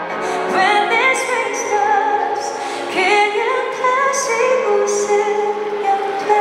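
A woman singing live with a symphony orchestra accompanying her; her sung line moves between held notes over sustained orchestral chords.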